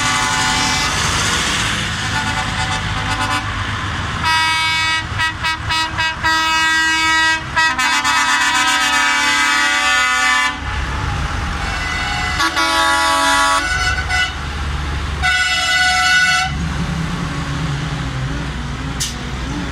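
Column of passing farm tractors with their diesel engines running and their horns honking: a burst of short toots about four seconds in, then several longer held blasts.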